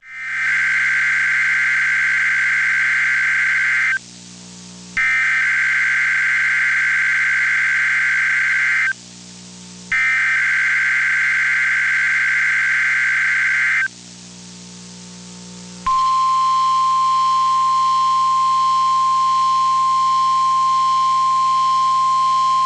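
NOAA Weather Radio SAME alert header: three bursts of harsh, warbling digital data tones, each about four seconds long with a second's pause between them. After the third burst comes a steady, continuous 1050 Hz weather radio warning alarm tone.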